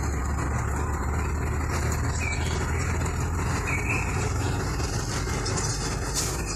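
Steady engine and road rumble of a vehicle driving in city traffic, heard from inside its cabin, with a brief sharp noise near the end.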